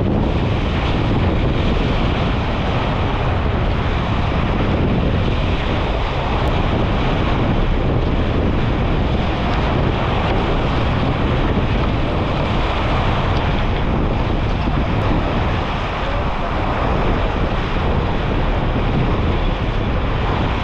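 Strong wind buffeting the microphone over water rushing along the hull of a J/99 sailboat running downwind in about 25 knots and a rough sea: a loud, steady roar.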